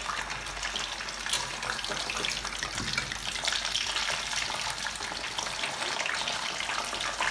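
Pieces of boiled chicken leg and thigh frying in hot oil in a pan: a steady sizzle with scattered small pops and crackles.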